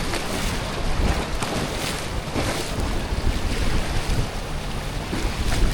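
Rushing river rapid water around a raft, with wind buffeting the microphone.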